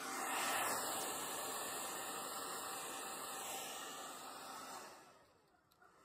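Wazor 1875-watt hairdryer on cool air and high fan, blowing a steady rushing hiss. It swells about half a second in, holds, then fades away near the end as the fan is switched down.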